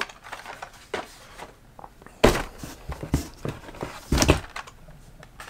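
Cardboard case and blister-carded die-cast cars being handled: scattered rustling and scraping with small knocks, and two louder thuds about two and four seconds in.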